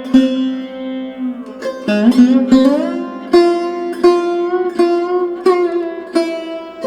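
Background music: a plucked string instrument playing a slow melody of struck notes, some of them bending in pitch, over steady held lower tones.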